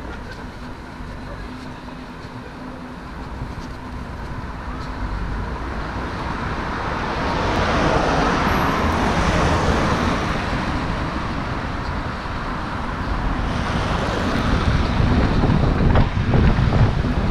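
Road traffic on a wide city street: a car swells past about halfway through, then wind buffets the microphone with a low rumble near the end.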